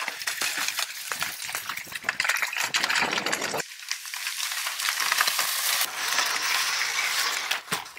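Dense crackling and rustling of dry leaf litter and twigs, full of small clicks, as a Deep Robotics Lynx wheel-legged robot's wheels churn through the forest floor. The deeper part of the sound drops away a little over a third of the way in.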